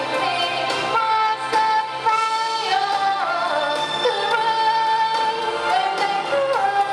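A young woman singing a pop ballad into a microphone over a recorded backing track with a steady beat, holding long notes with vibrato.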